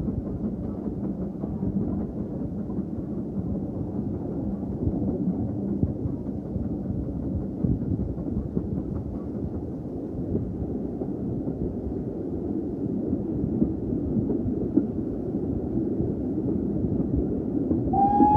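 Steam-hauled train on the move: a steady rumble of carriage wheels running on the rails. A single clear high tone starts right at the end.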